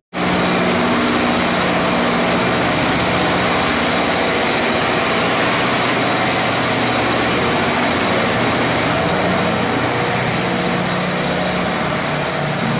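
Loud, steady engine-room noise from a large in-line marine diesel engine running, a dense din with a steady low hum under it.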